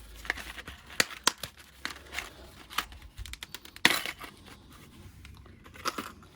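Packaging of new Shimano B01S disc brake pads being torn open and crinkled by hand: irregular rustling with several sharp clicks, the loudest about four seconds in.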